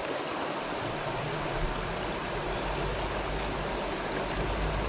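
Steady rush of river water flowing around a wading angler, with a low rumble coming in about a second and a half in.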